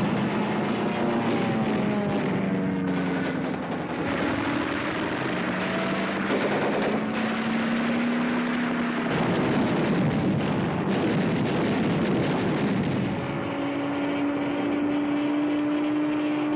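Air-raid battle sound effects on an old film soundtrack: a dense, continuous rattle of anti-aircraft and machine-gun fire over the wavering drone of aircraft engines. About three-quarters of the way through, a held whine sets in and rises slowly in pitch.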